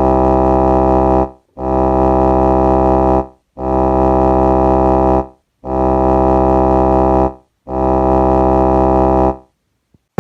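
Music: five identical sustained keyboard chords, each a little under two seconds long, with short silent gaps between them.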